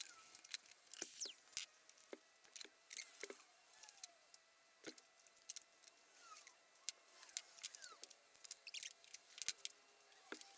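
Faint clicks and light taps of small tools and valve-train parts being handled on an aluminium engine cylinder head, with a few short squeaks.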